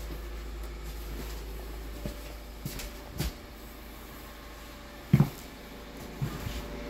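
Footsteps and a few scattered knocks on a bare floor in an empty, stripped room, the sharpest knock a little past the middle, over a low steady hum.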